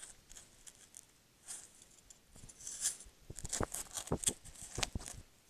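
Red fox cub investigating the trail camera right at the lens: irregular close scratching, rubbing and clicking against the camera housing, growing denser and louder in the second half before stopping.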